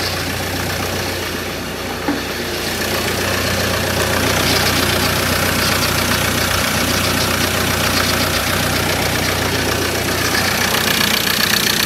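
Ford Ranger 2.2 TDCi four-cylinder diesel idling steadily with a tractor-like clatter. This is the first run of a freshly reconditioned engine, with the oil still working its way round. The sound grows a little louder about four seconds in.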